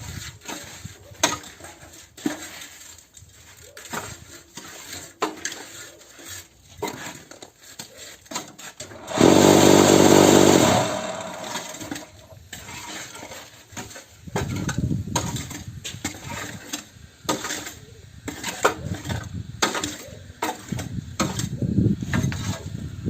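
Cinder-block making machine at work: a run of clattering knocks and scrapes, with its vibration motor running loudly for about two seconds near the middle, then a denser rumbling clatter in the second half.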